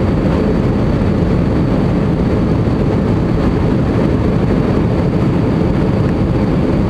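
Steady cabin noise of an Airbus A320 in its climb after takeoff: jet engines and rushing air heard through the fuselage as a loud, even, low rumble, with a faint steady high whine.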